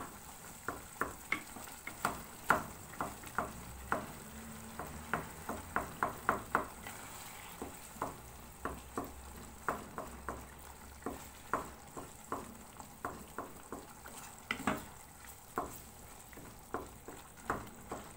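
A cooking utensil knocking against a karahi in quick, irregular taps while softened tomatoes are mashed into the chicken, over a faint sizzle from the pan.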